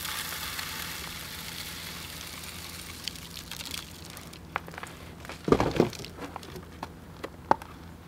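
Birdseed pouring from a scoop into a Bird Buddy smart bird feeder, a rushing hiss of seed that fades over the first three seconds. Then scattered clicks and knocks as the filled feeder is handled, loudest about five and a half seconds in.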